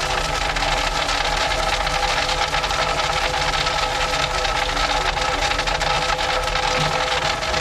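Engine of a track maintenance machine running steadily, with a continuous fine clatter.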